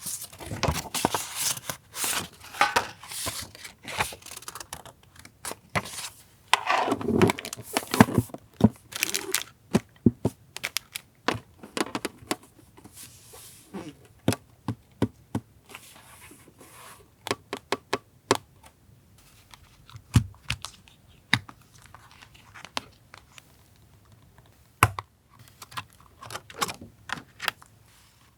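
Paper and stationery being handled on a desk: a dense stretch of paper rustling in the first ten seconds or so, then sparser light taps and clicks.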